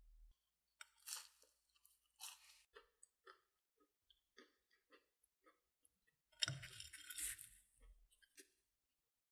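Crisp taiyaki crust being bitten and chewed, a run of small crunches with the loudest, longest crunching about six and a half seconds in.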